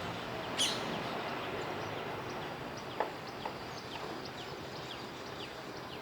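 Small birds chirping over a steady background hiss, with a sharp click about half a second in and a smaller one around three seconds in.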